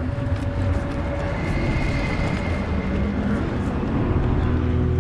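Film sound design of a burning battlefield: a steady deep rumble under a hiss of noise with faint crackles, overlaid by long held drone tones, one higher tone sustained through the middle.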